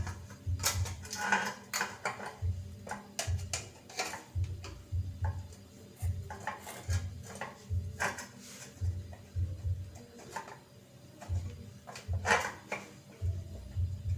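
Metal clinking and knocking of tools and parts while a single-tub washing machine's gearbox is taken apart: irregular sharp clicks, with a louder cluster about twelve seconds in.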